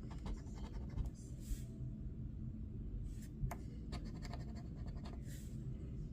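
A scratch-off lottery ticket being scraped, the coating rubbed off in three bursts of quick short strokes with pauses between.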